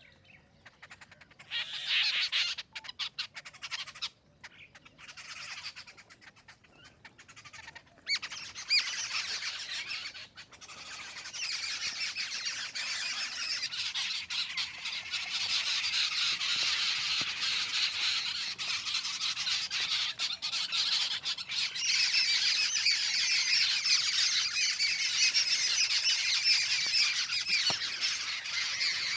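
Jungle babblers calling with harsh, squeaky chatter. A few short bouts come at first, and from about eight seconds in the chatter becomes continuous and dense.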